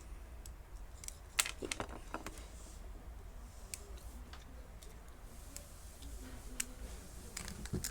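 Scattered light clicks and taps of small plastic Beyblade parts being handled, about eight irregular clicks.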